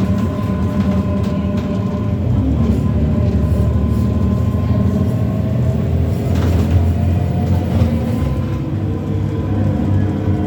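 Irisbus Citelis CNG city bus running, a steady low rumble with a thin, steady high whine over it. Several higher tones shift slightly in pitch in the last few seconds.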